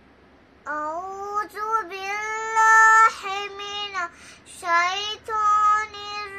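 A young girl's voice chanting Quranic recitation in a melodic, drawn-out style, beginning just under a second in: long held notes that bend at the ends of phrases, with a short breath pause partway through.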